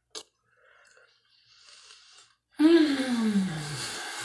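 A woman's long sigh, voiced and breathy, sliding steadily down in pitch, starting about two and a half seconds in. A small click comes right at the start.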